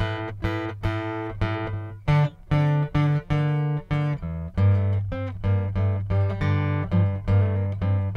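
Solo steel-string acoustic guitar playing an instrumental: a melody of single plucked notes, joined about halfway through by a low bass note repeated in a steady pulse.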